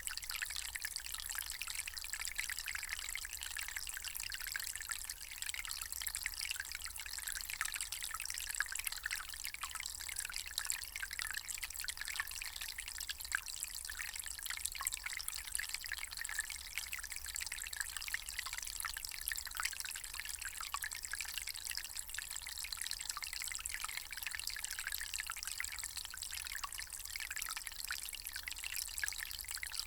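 Water trickling and pouring steadily, a light continuous splashing with no deep rumble.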